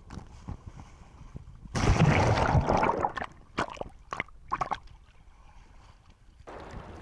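Small sea waves splashing and gurgling against a camera held at the water surface. There is one loud splash about two seconds in that lasts about a second, then a few short splashes, and near the end a steadier wash of water.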